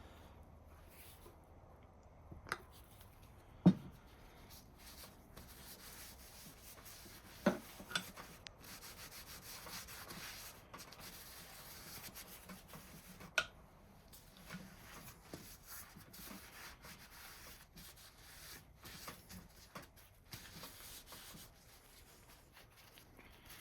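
Quiet rubbing and handling of a freshly oiled bench vise, broken by a few sharp knocks, the loudest about four seconds in.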